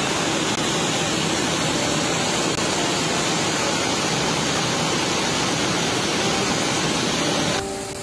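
Brown floodwater rushing down a street in a steady, heavy torrent: a dense, even rushing noise that drops sharply in level near the end.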